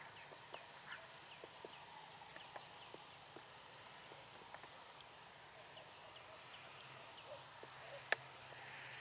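Faint, distant small birds singing: short high chirps in quick little phrases, over a low steady hum, with one sharp click about eight seconds in.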